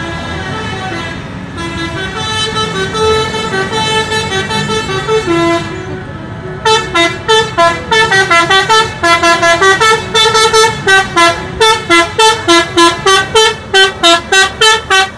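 Indonesian tour bus's multi-tone musical air horn (a 'telolet' horn) playing a tune: about six seconds of changing notes run together, then a quick string of short honks, about three a second, stepping up and down in pitch.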